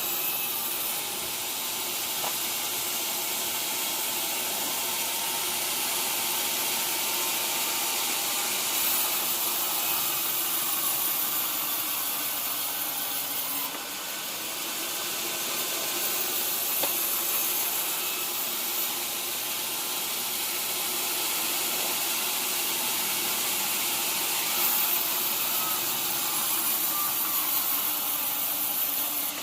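Sawmill saw running and cutting through a teak log, a steady hiss with a mechanical hum beneath it.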